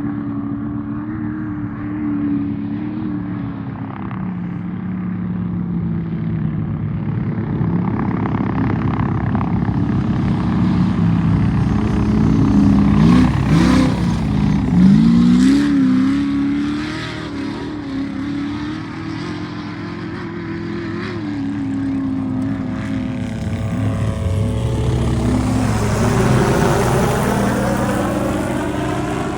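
Off-road race truck engines running hard, their pitch swinging up and down with the throttle around the middle. Near the end a vehicle passes close by, with a sweeping rise and fall in tone.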